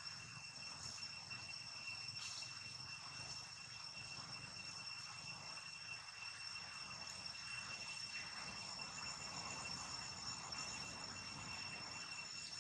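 Insects trilling in a steady, unbroken high-pitched drone, faint, with a light background hiss.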